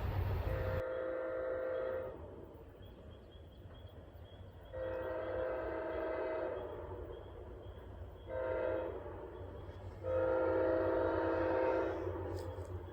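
Locomotive chime horn sounding the grade-crossing signal: two long blasts, a short one, then a long one, the warning of a train approaching a crossing. A rushing noise stops abruptly just before the first blast.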